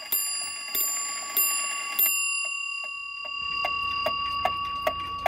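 Wm. L. Gilbert 30-hour kitchen clock's count-wheel striking hits its bell four times, about two-thirds of a second apart, and the bell rings on and fades. The movement then ticks steadily, about two and a half ticks a second.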